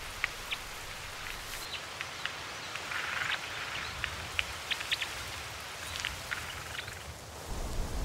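Red crossbills working at pine cones: scattered short, high ticks and chips over a steady hiss.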